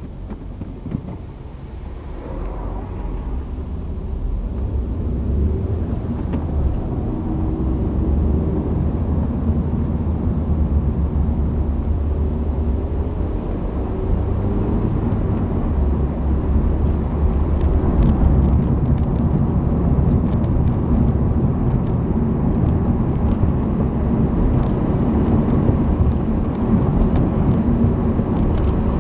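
Engine and tyre road noise heard inside a moving Honda Civic's cabin: a steady low rumble that grows louder over the first few seconds as the car gathers speed, with faint light ticks in the second half.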